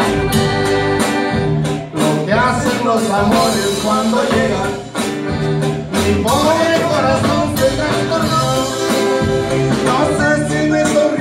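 A live band playing a regional Mexican song: electric bass and a regular beat under a wavering lead melody.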